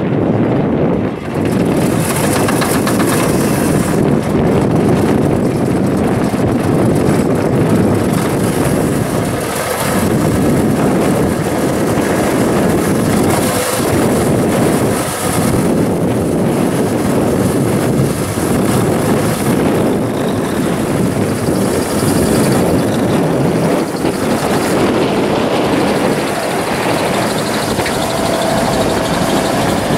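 Cummins NT-855 six-cylinder diesel of a 1982 Versatile 835 4WD tractor running steady and loud as the tractor is driven.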